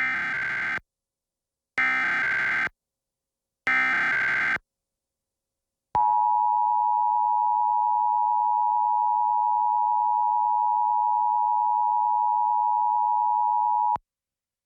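Emergency Alert System SAME header: three short bursts of warbling data tones about two seconds apart. They are followed by the two-tone EAS attention signal, held steady for about eight seconds and then cut off sharply. Together they open an EAS monthly required test alert.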